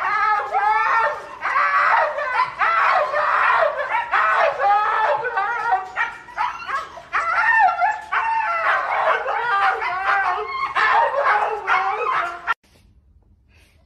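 Huskies yipping, whining and howling in a fast, unbroken run of rising and falling calls, which cuts off abruptly about twelve and a half seconds in.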